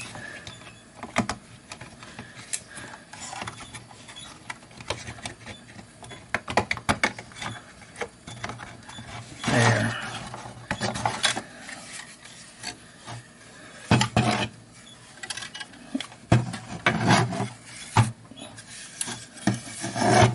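Handling noise from a Snap-On timing light being reassembled: irregular clicks and taps of its plastic housing and circuit board, with rubbing and scraping as parts are pushed into place, louder in a few bursts about halfway through and again near the end.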